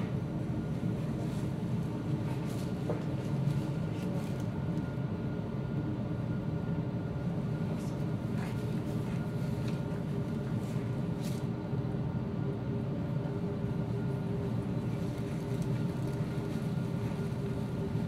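Steady background hum with several constant tones and a few faint ticks, unchanging throughout.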